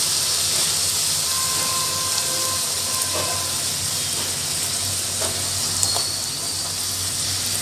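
A puffed poori deep-frying in hot oil in a kadai: a steady sizzle of bubbling oil that eases a little over the seconds.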